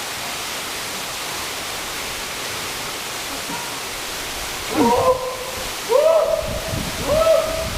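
Steady rushing noise of a waterfall. From about five seconds in, three short pitched calls, each rising quickly and then held, about a second apart.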